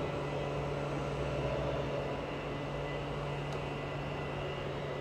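Class 717 electric multiple unit approaching, a steady electric hum with a faint high whine over the noise of its wheels on the rails.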